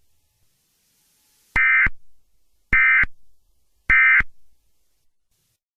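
Emergency Alert System end-of-message data bursts: three short, harsh electronic buzzes about a second apart, the coded signal that closes an EAS alert.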